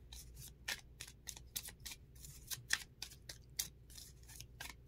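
A deck of tarot cards being shuffled by hand: a string of soft, crisp clicks and flicks of cards sliding off the deck, irregular, about four a second.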